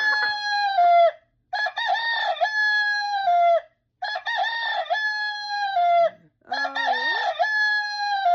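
Alarm clock playing its rooster alarm: a recorded rooster crowing cock-a-doodle-doo over and over, a new crow about every two and a half seconds, really loud.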